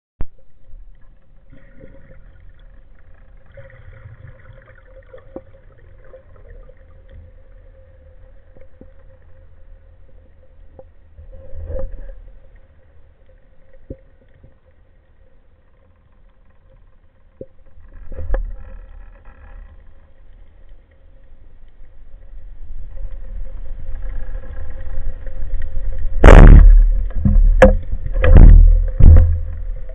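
Underwater sound: a low rumble of water with a faint steady hum, growing louder over the last several seconds. About 26 seconds in, a sharp loud crack as the speargun fires, followed by a few more loud knocks and rattles of the gun and shaft.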